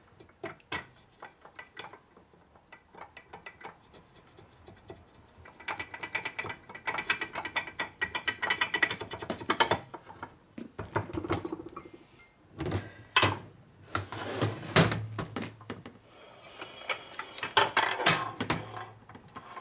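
Metal clicking and clacking as the gear cover is fitted over the cam on a 1961 Harley-Davidson XLCH Sportster's aluminium engine case, with the cam gears meshing as the parts are worked together. A stretch of rapid ticking comes in the middle, then a few sharp clacks near the end as the case is handled on the steel bench.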